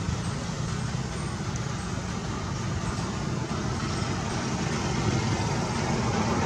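Steady outdoor background noise: a low rumble with an even hiss over it, growing a little louder near the end.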